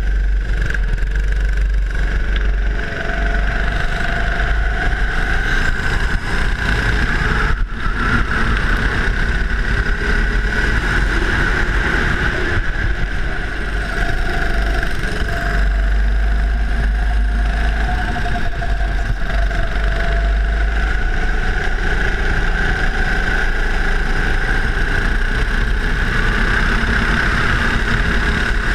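Go-kart engine running steadily at speed, heard from on board the kart, its note wavering slightly through the corners over a heavy low rumble.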